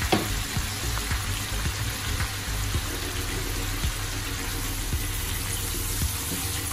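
Pork belly, onions and soy sauce sizzling steadily in a hot pot, with a spatula starting to stir the meat near the end.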